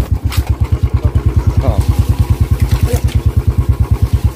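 Small engine running steadily with an even, fast thumping beat of about eleven pulses a second. A couple of sharp clicks sound over it, near half a second in and near three seconds in.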